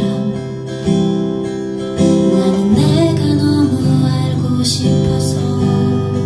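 Steel-string acoustic guitar strummed in a slow song, the chords ringing and changing about every second.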